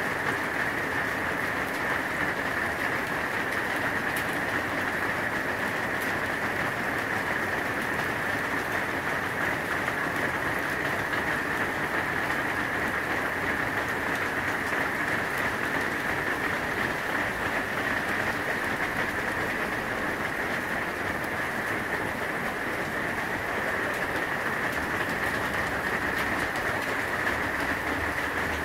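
Steady rain falling on an aluminum patio cover, heard from beneath it as a continuous, even hiss.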